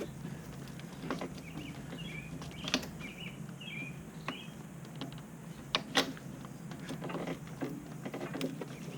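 Sharp clicks and knocks of hydraulic hose quick-couplers being handled and pushed together at the tractor's rear connections, the loudest a pair about six seconds in. A bird chirps repeatedly over a steady low hum.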